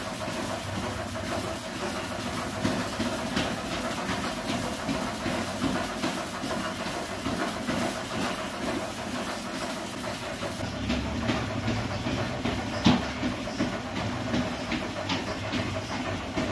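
Home treadmill running with a steady mechanical rattle and hum from its belt and rollers, under repeated footfalls on the belt. A single sharper knock about 13 seconds in.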